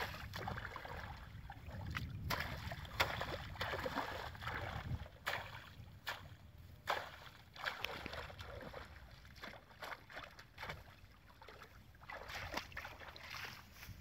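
Shallow muddy water sloshing and splashing in irregular strikes as hands and a knife work in it, with wind rumbling on the microphone for the first few seconds.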